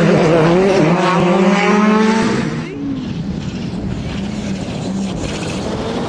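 Rally car engine running hard, its pitch rising and falling with the throttle, then dropping in level after about two and a half seconds as the car moves away, the engine note carrying on more quietly.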